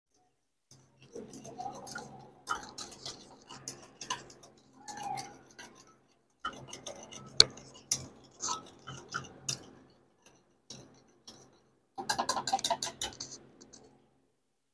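Curd being stirred with sugar and salt in a bowl: quick scraping and ticking of the utensil against the bowl, in three spells with short pauses, with one sharp clink about seven seconds in.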